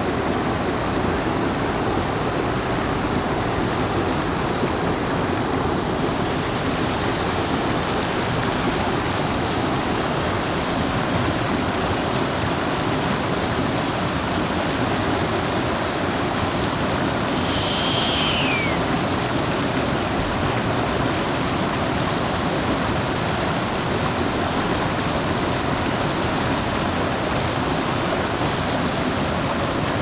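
A juvenile Blakiston's fish owl gives one high call about halfway through, a held note that falls away at the end, over a loud steady rush of running water.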